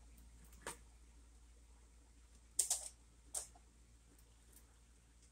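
A few light clicks and taps of a plastic slotted spoon on a baking sheet and saucepan rim: one about a second in, then a quick cluster and one more tap around three seconds in.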